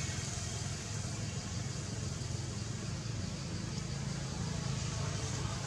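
Steady outdoor background noise: a low, even rumble with a high hiss above it, with no distinct events.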